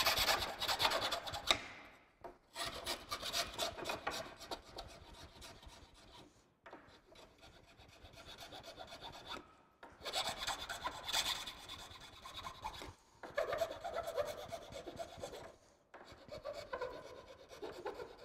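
Hand file scraping back and forth over the edge of a moulded HDPE plastic piece, smoothing the rough edges, in runs of quick strokes broken by short pauses.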